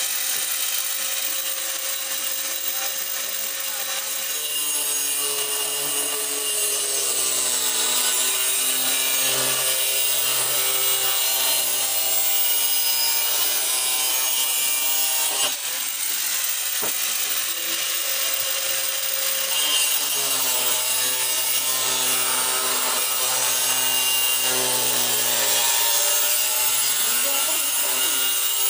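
Electric angle grinder running and cutting, a steady loud grinding whose motor pitch dips and recovers several times as the disc bears into the work.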